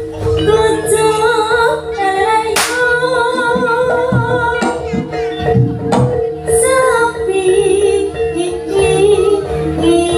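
Jaranan music: a singer's wavering melody over a steady held tone, with drum and cymbal hits.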